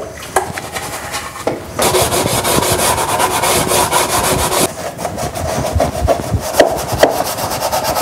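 A stiff brush scrubbing a plastic beehive part in washing-soda water, in quick, even back-and-forth strokes, to strip off wax and propolis residue. The scrubbing grows louder about two seconds in, with a couple of light knocks before it.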